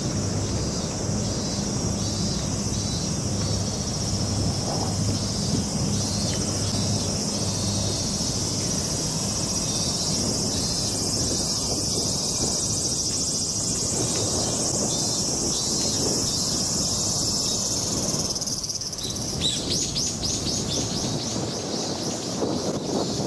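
Cicadas in the summer trees, a dense, steady high-pitched shrill, changing about twenty seconds in to a rapid pulsing call.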